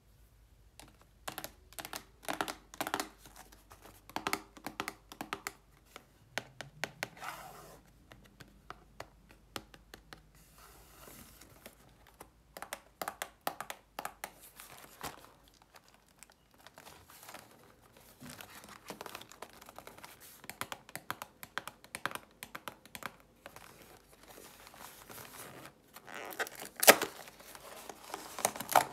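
Fingernails tapping and scratching on a cardboard snack box as it is handled and turned over, in quick irregular clicks and rustles. Near the end there is a sharp crack and a burst of tearing as the box is torn open.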